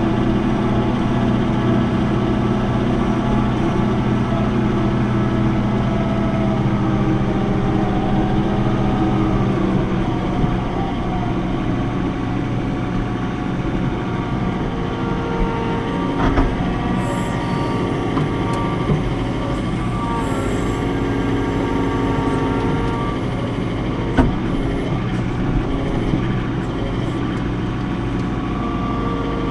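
Diesel engine of a John Deere 4066 compact tractor running steadily while it works a front loader; the engine note drops about a third of the way through. A few sharp knocks come later.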